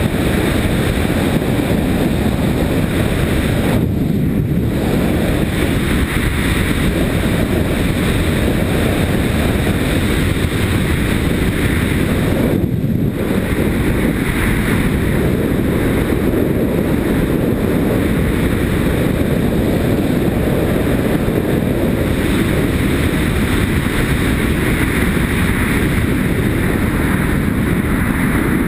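Wind buffeting a helmet-mounted action camera as a Yamaha Ténéré motorcycle rides along a gravel track: a steady low rumble of wind noise with the bike's engine and tyres underneath.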